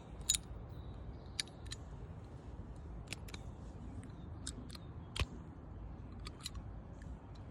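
Scattered light metallic clicks and taps, about a dozen at irregular intervals, as a new spark plug is threaded in by hand with a socket wrench. The sharpest clicks come just after the start and about five seconds in, over a faint steady background hiss.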